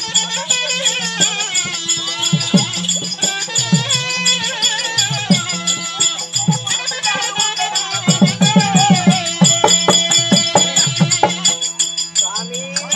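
Traditional Tamil stage-drama music: a gliding melody over a steady drone, with low drum strokes and a fast, even shaking rhythm. A quick run of drum strokes comes about two-thirds of the way through, and the music stops just before the end.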